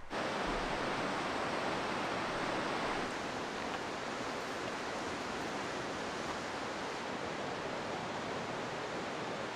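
Steady rushing of river rapids, an even hiss of whitewater with no distinct splashes, starting abruptly and easing slightly in level about three seconds in.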